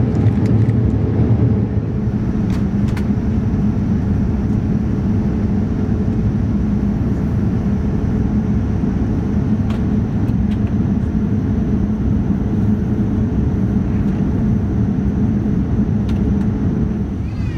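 Steady cabin noise of a Boeing 787-9 airliner in descent, heard from inside the cabin: a low rumble of airflow and its GEnx-1B engines with a steady hum.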